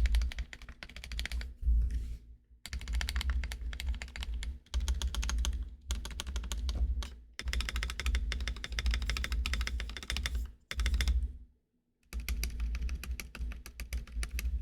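Typing on a GK64x mechanical keyboard with lubed Akko CS Lavender tactile switches in an aluminum plate, dampened with a t-shirt mod: fast runs of keystrokes in bursts, with short pauses about two seconds in and near the end.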